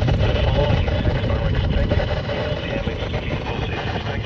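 Weather radio receiver playing an NWR broadcast through heavy static and a steady low hum, the broadcast voice faint beneath the noise.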